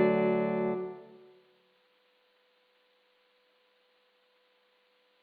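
The final struck chord of a bell-sound music piece rings out and dies away over about the first second and a half. Only a faint steady tone lingers afterwards, stopping near the end.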